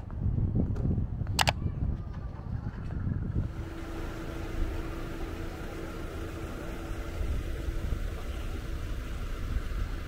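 Outdoor street ambience: steady low rumble of wind on the microphone with distant car traffic, and a faint steady hum for a few seconds in the middle. Two sharp clicks sound in the first second and a half, from a subscribe-button animation.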